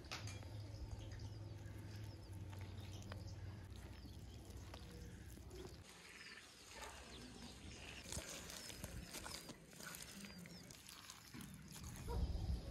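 Faint animal calls, with a cluster of short high chirps about eight to nine seconds in, over a low steady hum.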